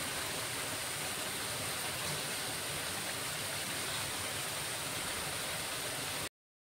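Steady, even rushing hiss of outdoor ambience with no distinct events, cutting off abruptly about six seconds in.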